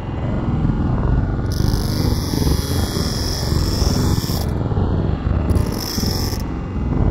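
Electric grinder's abrasive disc running while sharpening the steel teeth of a bandsaw blade. It grinds into the teeth twice, adding a high hiss from about a second and a half in until about four and a half seconds, then again briefly near the end, over the grinder's steady running.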